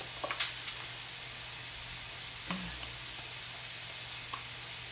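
Burger patties sizzling on a hot griddle, a steady frying hiss, with a few faint light clicks.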